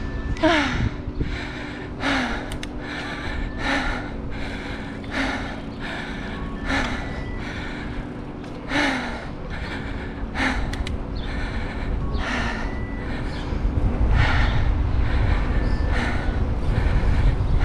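A cyclist's heavy, rapid breathing from the effort of riding, about one breath a second, some breaths ending in a short falling moan. A low rumble grows louder over the last few seconds.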